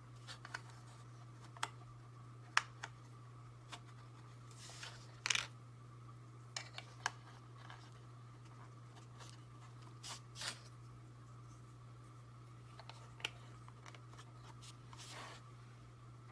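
Scattered light clicks and a few brief rustles of small hard-plastic action-figure accessories being picked up and handled, about ten in all, over a steady low hum.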